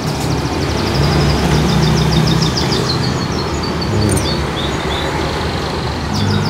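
A motor vehicle's engine running close by, a steady low rumble, while a small bird chirps in a quick series through the first few seconds.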